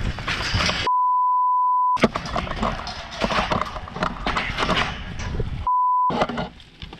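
Two censor bleeps, each a single steady high beep, blank out the sound: a long one about a second in and a short one near the end. Around them comes a clatter and scuffle of sheep hooves and shaking yard panels as a merino ram jumps out of the yards.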